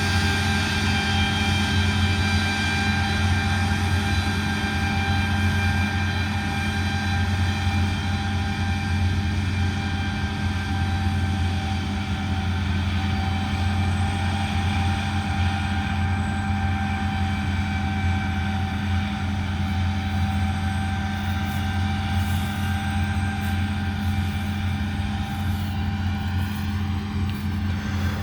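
Diesel engine of a harvest-field farm vehicle running steadily, a constant low drone heard from inside the cab. Some faint clicking and a slight rise in pitch come in near the end.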